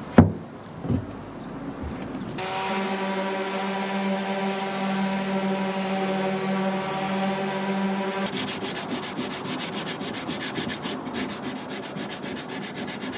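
Two knocks on wood, then a power tool's electric motor running with a steady hum for about six seconds. Near the end the hum gives way to fast, rhythmic rubbing against wood, like sanding.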